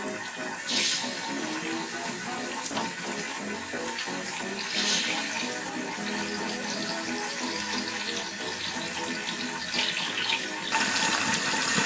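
Raw chicken breasts sizzling in hot oil as they sear in a stainless steel frying pan, a steady hiss that grows louder near the end.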